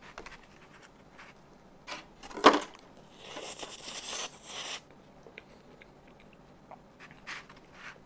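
Metal fork clicking and scraping in a plastic cake tray, with one sharp knock about two and a half seconds in. This is followed by a slurp of just under two seconds as a soft bite of durian cheesecake is sucked off the fork, then a few faint clicks.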